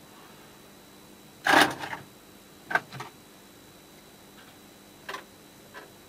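A short scrape about a second and a half in, then a few sharp light clicks, as small metal tools and nuts are handled while the nuts are fitted onto the controller's phono jacks.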